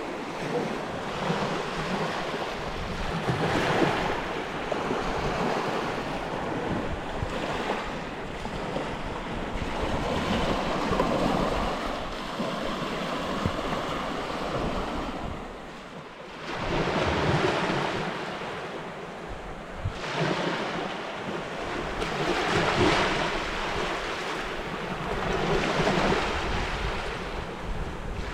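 Wind rushing in gusts that swell and fade every few seconds, with wind buffeting the microphone as a low rumble; it drops away briefly about halfway through.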